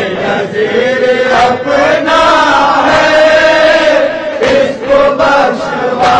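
Voices chanting an Urdu noha lament in long, drawn-out notes without clear words, with a few sharp beats now and then.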